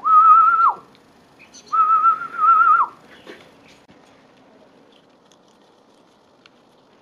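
A person whistling two long, slightly wavering notes, each sliding down at the end, followed by a few faint handling clicks.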